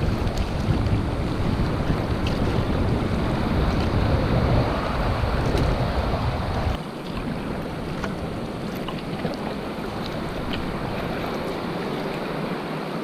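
Wind buffeting the microphone over a steady wash of sea water and waves; the low wind rumble drops away abruptly about halfway through, leaving the water hiss with a few faint ticks.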